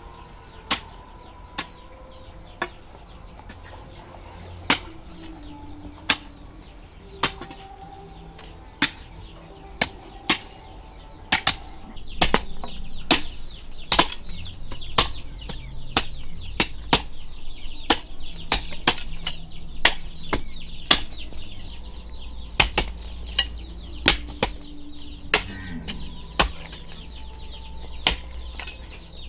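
Sharp knocks, one to two a second and more frequent after about twelve seconds, with poultry clucking in the background.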